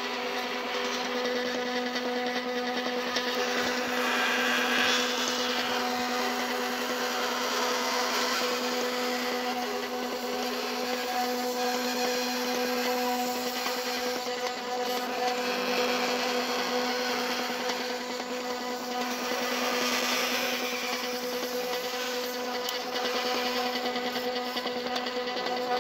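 Small electric motor driving the geared spool of a homemade PET filament winder, running steadily with an even hum over a rougher mechanical whirr.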